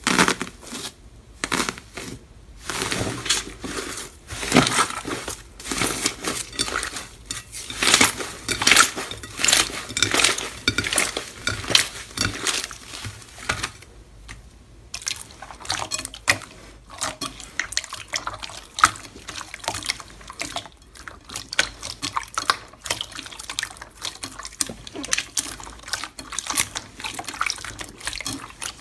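Slime being squeezed, poked and stretched by hand, giving a run of wet, sticky clicks and squelches that are irregular, with a short pause about halfway through.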